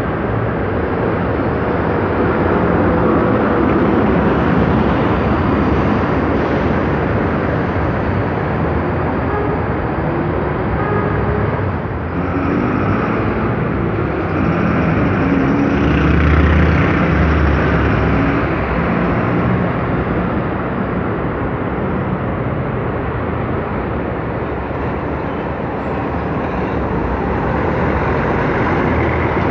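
Steady city road traffic with city buses running past. A bus engine's note glides and its low rumble grows loudest a little past the middle.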